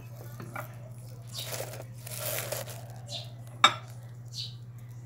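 Dried tea leaves, lemongrass and other dried herbs rustling and crinkling as they are dropped into a coffee maker's filter basket, loudest about a second and a half to two and a half seconds in, with one sharp knock a little past three and a half seconds.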